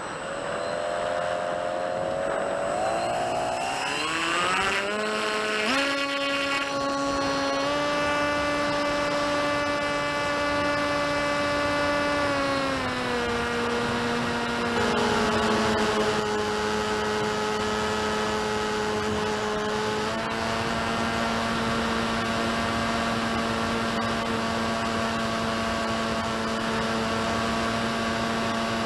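Electric motor and pusher propeller of an FX-61 flying wing heard from its onboard camera: the whine climbs in pitch over the first few seconds as the throttle comes up for takeoff, then holds steady in flight, dropping slightly about twelve seconds in and holding again, over a steady hiss.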